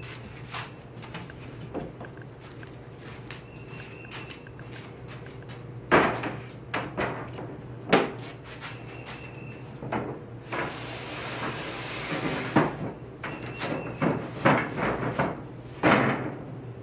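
A sheet of plywood handled and laid onto a wooden bed frame's pine slats: wooden knocks and thumps, two loud ones about six and eight seconds in, a rushing scrape of about two seconds as the sheet slides across, then a quick run of knocks as it is settled into place.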